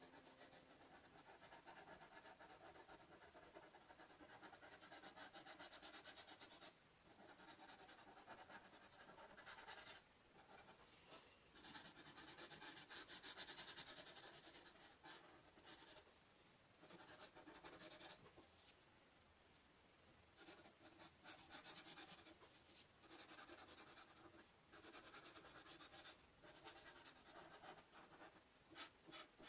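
Faint felt-tip marker tip scratching across paper while colouring in, in runs of quick strokes with short pauses.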